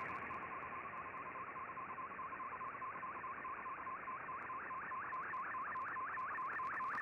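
Shortwave Radiogram's digital picture transmission received on an Icom IC-R8600 shortwave receiver. It is a warbling tone sweeping up and back down about five times a second over a layer of band hiss, each sweep one line of a colour image being sent.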